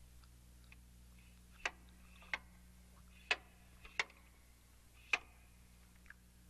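Switches on a radio-studio mixing console being clicked on: five sharp clicks at uneven intervals, with a few fainter ones, over a low steady hum.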